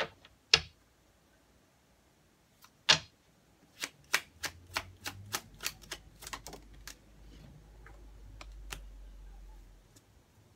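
Tarot cards being handled: a few sharp knocks of the deck against the tabletop, then a run of quick clicks and snaps as the cards are shuffled by hand.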